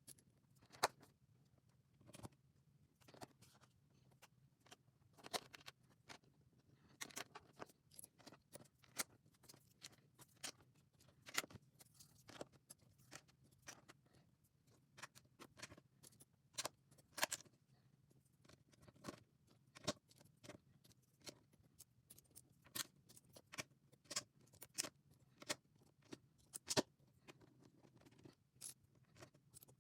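Plastic LEGO bricks clicking and clattering as pieces are handled and pressed together: irregular sharp clicks, a few each second, over a faint low hum.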